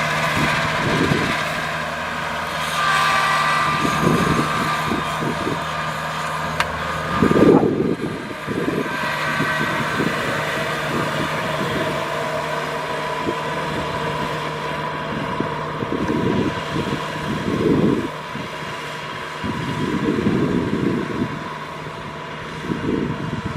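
Kubota DC-70 Plus combine harvester running steadily as it works, its engine and threshing machinery giving a constant drone with irregular low rumbles over it.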